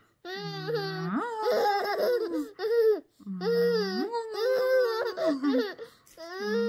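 A high voice vocalizing a repeated sing-song phrase three times, each starting on a held low note, jumping up and sliding back down.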